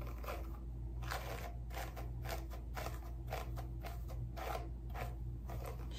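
A Tangle Teezer detangling brush raked through wet, conditioned hair in quick short strokes, about three or four a second, each a soft scratchy swish. The hair is detangling easily. A steady low hum runs underneath.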